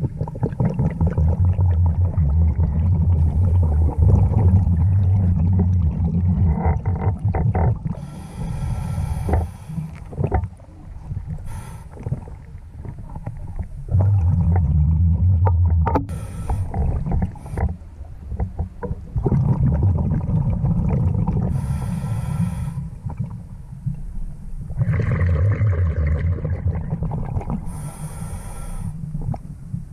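Scuba diver breathing through a regulator, heard underwater through the camera housing: a short hiss as each breath is drawn, then a long, low bubbling rumble as it is breathed out, about every six seconds.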